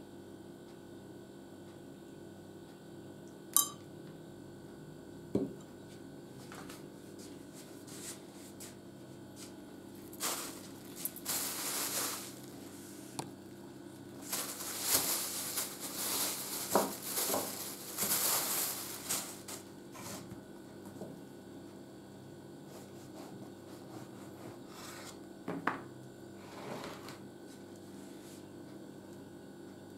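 A metal spoon clinks sharply against a ceramic mug twice, then a plastic bag rustles and crackles for several seconds while a loaf of bread is handled. Near the end a knife knocks and scrapes against bread on a wooden cutting board, over a faint steady hum.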